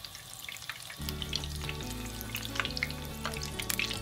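Butter melting in hot olive oil in a frying pan, sizzling with many small pops and crackles that grow denser as it goes.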